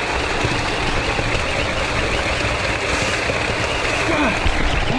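Water gushing steadily into a fish pond like a small waterfall.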